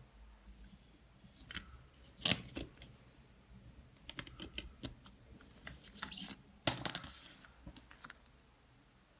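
A CD and its plastic case and packaging being handled: scattered sharp clicks and short rustles, the loudest a couple of seconds in and again near seven seconds.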